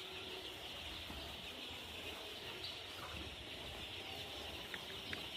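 Many young broiler chicks peeping at once, a steady chorus of overlapping high, falling cheeps. A couple of faint clicks come near the end.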